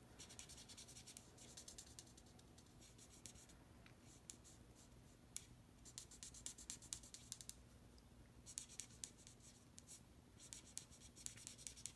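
Faint scratching of an alcohol marker's felt tip on cardstock as a small image is coloured in, in bursts of quick short strokes with brief pauses between.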